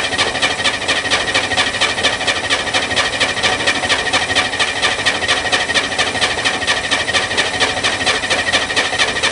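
Corvair Spyder's air-cooled flat-six turning over on the electric starter without firing: a fast, even cranking rhythm over a steady starter whine. A cold no-start: the engine cranks but does not catch.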